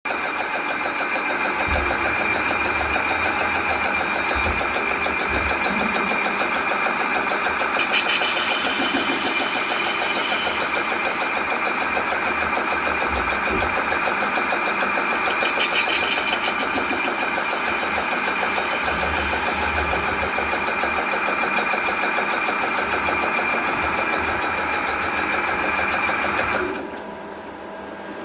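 CNC lathe running: a steady machine noise with a constant high whine, and two short stretches of brighter, hissier noise about eight and fifteen seconds in. The noise drops off sharply near the end.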